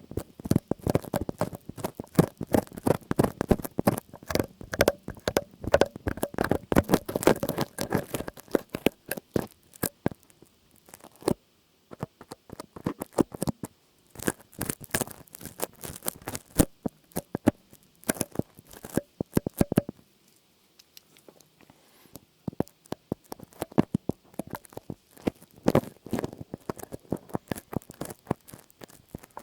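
Close-miked ASMR trigger sounds: rapid, irregular crackling, tapping and scratching in dense runs, with a few short pauses and a quieter stretch about two-thirds of the way through.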